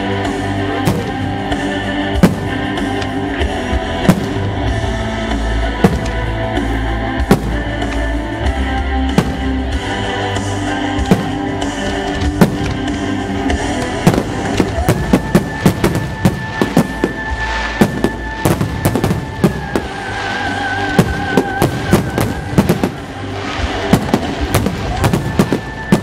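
Aerial firework shells bursting and crackling over music. The bangs come every second or two at first, then turn into a rapid, dense barrage about halfway through.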